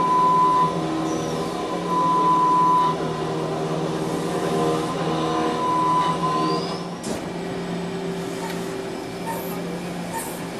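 Machinery running with a steady hum, joined three times by a high whine lasting under a second.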